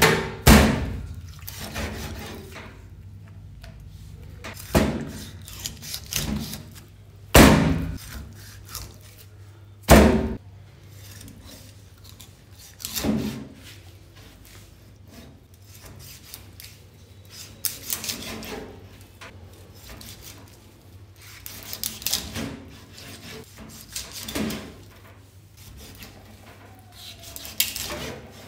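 Heavy knife cutting a seer fish (king mackerel) into cross-section steaks through the backbone on a plastic cutting board. Sharp thunks come every few seconds as the blade pushes through and strikes the board, the loudest near the start and twice more around the middle, with scraping and rubbing of blade on flesh and board between. A low steady hum runs underneath.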